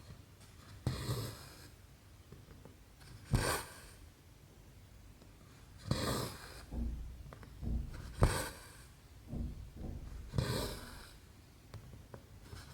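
Cross-stitch needle and thread drawn through 11-count fabric: a short swish of thread about every two seconds, six in all, with faint taps of the needle between them.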